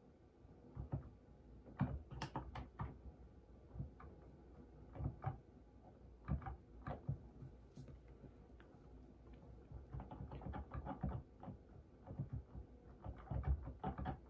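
Irregular key clicks and taps of typing on a computer keyboard, coming in quick clusters with short gaps between.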